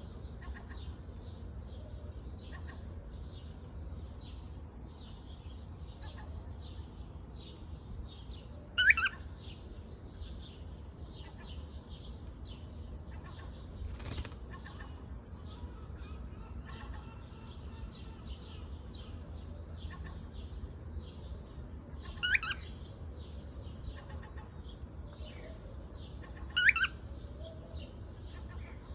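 Pet parrot chattering in quick soft chirps, breaking into three loud, short calls that sweep up and down, one about a third of the way in and two near the end. A brief rustle comes in the middle, over a low steady hum.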